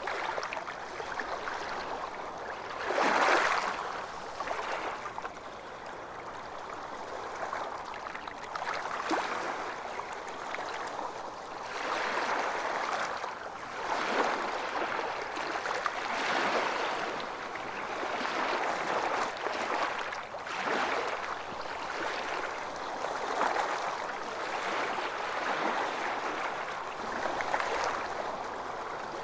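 Calm small waves lapping and washing, a steady sound of water that swells and eases every couple of seconds, with one louder splash about three seconds in.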